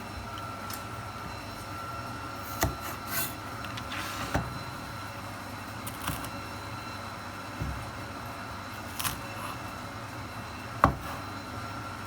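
A kitchen knife knocking on a cutting board in single, unhurried strokes, about six or seven knocks spread out irregularly, the loudest near the end, over a steady background hum.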